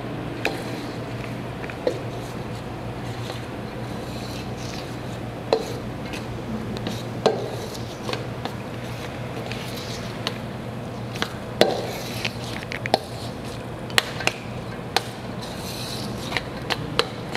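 Flour and water being mixed into dough in a stainless steel bowl: irregular sharp clinks and scrapes against the bowl's metal, about a dozen scattered through, over a steady low hum.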